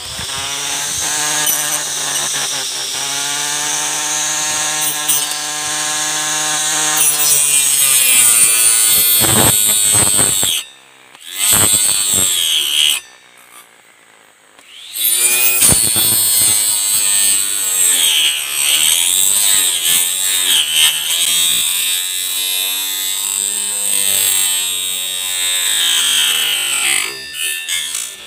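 Battery-powered grass trimmer's electric motor whining at speed as its spinning cutting head saws into a thin woody sapling stem, the pitch dipping as it bites. The motor stops twice around the middle, once briefly and once for about two seconds, then runs on.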